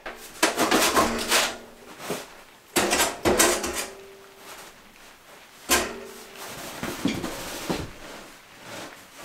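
A sheet-metal woodstove stovepipe being worked loose and pulled out through the tent's roof plate. It makes repeated scraping and rattling metal sounds, with a sharp knock a little past the middle and short ringing tones from the pipe.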